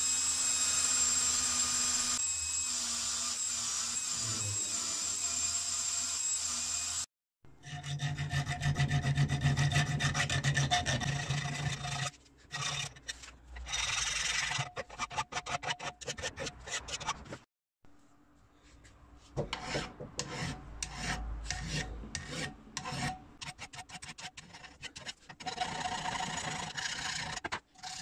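A cordless drill spins an abrasive wheel against a steel wrench, a steady whine with scraping, for about the first seven seconds. After a break come many rapid scraping strokes of hand filing and rubbing on the steel, stopping and starting.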